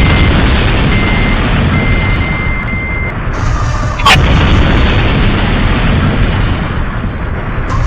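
Loud, dense rumbling blast noise, heaviest in the bass, with a few short high beeps in the first three seconds and a sharp crack about four seconds in.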